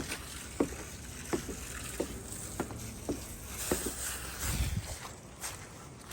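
A row of light knocks, roughly one every two-thirds of a second, over a faint outdoor hiss, with a dull low thump about four and a half seconds in.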